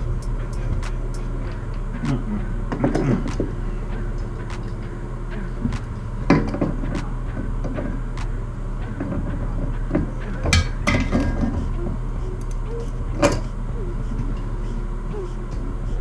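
Hands tightening the fill valve's shank nut and the supply line coupling under a toilet tank: scattered knocks and clatter against the porcelain tank, loudest about a third of the way in and again just past the middle, over a steady low hum with faint regular ticks.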